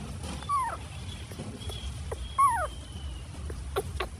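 A baby monkey giving two short, high cries that fall in pitch, about two seconds apart.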